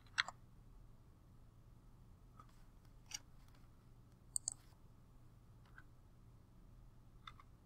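A few faint, scattered clicks and taps, a pair of them about halfway through, over a low steady hum.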